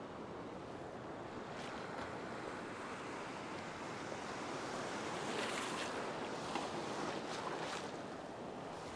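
Small waves breaking and washing through shallow beach surf; the wash swells about halfway through and eases off again.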